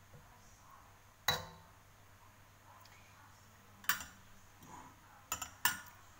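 Metal spatula clinking against a black metal wok: four sharp clinks, the loudest about a second in with a short ring, then three more near the end, the last two close together.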